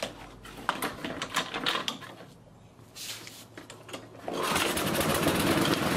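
A few light clicks and knocks of handling, then about two-thirds of the way through a petrol lawnmower engine starts and runs steadily. This is a test run after its aftermarket governor springs were stretched to ease their tension, because it had been running too fast.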